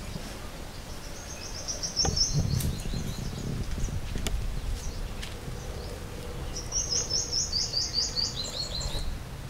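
A small bird singing two quick runs of short, high chirps, about four notes a second: one about two seconds in, a longer one from about seven seconds in.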